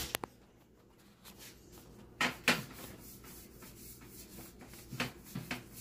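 Kitchen handling sounds: short knocks, the two loudest about two seconds in, then faint rubbing and light taps as olive oil is brushed across a metal sheet pan.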